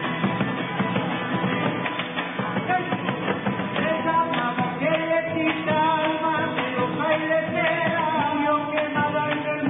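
Live Santiagueño folk music: strummed acoustic guitars playing steadily, with a sung melody coming in about four seconds in.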